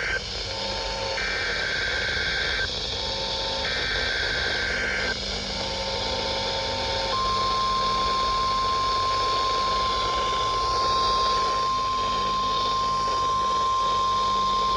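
NOAA Weather Radio Required Weekly Test coming over radio receivers. First come the last three bursts of the SAME header's warbling data tones, with fainter lower beeps between them. About seven seconds in, the steady 1050 Hz warning alarm tone starts and holds, over a low hum and hiss from the receiver.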